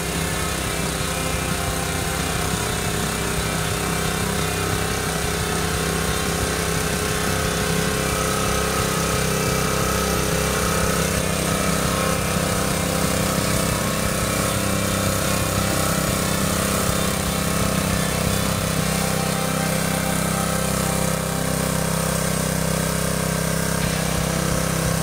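The Honda GX160 single-cylinder four-stroke engine of a homemade rotary cultivator runs steadily, a constant drone with no change in speed.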